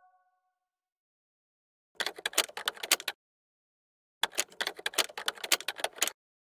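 Keyboard typing clicks in two quick runs, the first about a second long and the second about two seconds long, with silence before, between and after.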